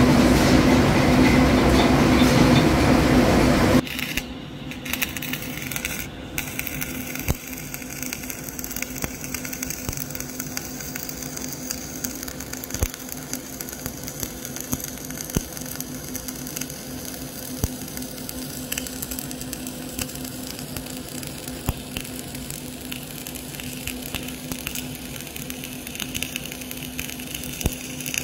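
A loud, dense rattling noise cuts off about four seconds in. After it comes flux-cored arc welding on a vertical fillet joint, a straight pass run without weaving: the arc crackles steadily with frequent small sharp pops.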